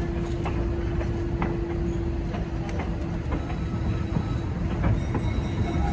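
Passenger railroad car rolling along the track, heard from an open-air car: a steady rumble of wheels on rail with scattered clacks. A steady hum fades out a little past halfway through.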